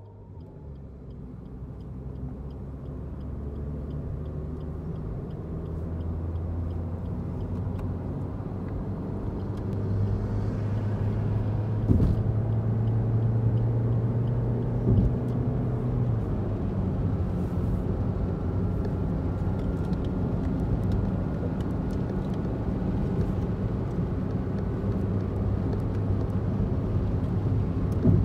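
Road and engine noise heard inside a moving car's cabin: a steady low drone that grows louder over the first ten seconds or so, with two brief knocks near the middle.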